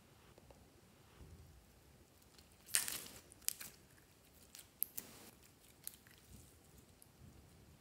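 Glossy slime being stretched and squeezed by hand, giving faint sticky crackles and a few sharp pops, the loudest a short crackling rush about three seconds in.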